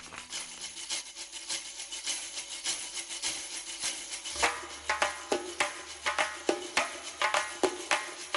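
Ensemble of doira, Uzbek frame drums with jingling metal rings, playing fast rolls and strikes. It starts softer and grows louder about four seconds in, with sharper strokes and a deeper layer underneath.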